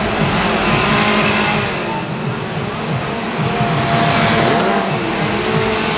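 Several two-stroke chainsaws revving and idling unevenly, their engine pitch rising and falling, over a loud continuous din.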